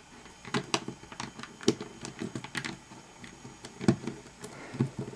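Plastic pieces of a Gigaminx puzzle clicking and tapping at an irregular pace as they are handled and pushed into place in the partly built puzzle, with a louder click a little under four seconds in.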